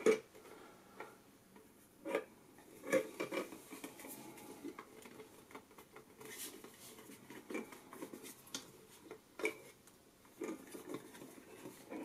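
Hard plastic water tank of a compact dehumidifier being handled and turned over: scattered light clicks and knocks of plastic, with a few louder clacks.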